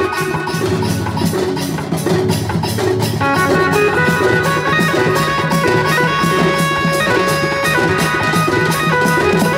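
Live folk drum band: large drums and brass hand cymbals beating a fast, steady rhythm, with a melody of held notes that step from pitch to pitch over it.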